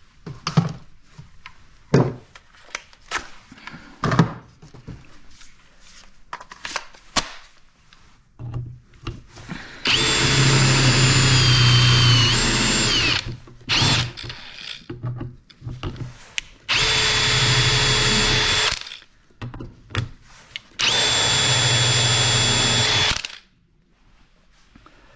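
Clicks and knocks of a cordless drill and battery being handled, then the drill powering a Hettich hinge drilling jig that bores the 35 mm hinge cup and screw holes into a wooden cabinet door. The drill runs three times, each for two to three seconds, with a steady whine that dips in pitch under load during the first run.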